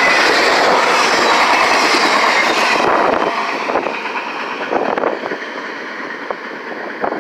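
Train passing close, its wheels rattling on the rails; about three seconds in the sound drops away as the end of the train moves off, leaving fainter irregular clicks of wheels over rail joints.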